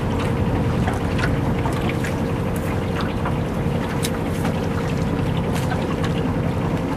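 Canal tour boat's engine running steadily under way: a constant low drone with a steady hum, and wind noise on the microphone.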